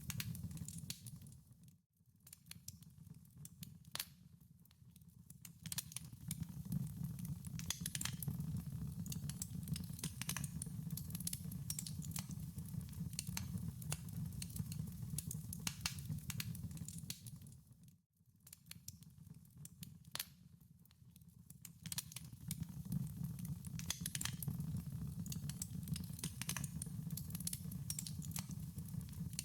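Wood fire burning in a fireplace, a steady low rumble with frequent irregular crackles and pops. The sound fades almost to nothing and back twice, about two seconds in and about eighteen seconds in.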